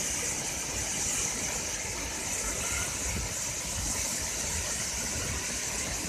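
Large waterfall pouring onto boulders: a steady rush of falling water with a low rumble underneath.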